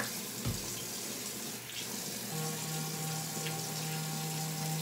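Tap water running into a bathroom sink. From about two seconds in, a steady electric hum joins it: a handheld facial cleansing brush switched on and held against the face.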